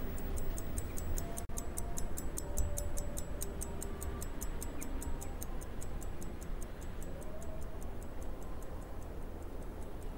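Quick, even clock-like ticking, about five ticks a second, growing fainter near the end, over a faint low background of music and hum.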